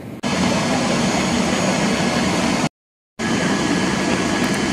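Steady, loud aircraft engine noise on an airport apron. It cuts out for about half a second near the middle.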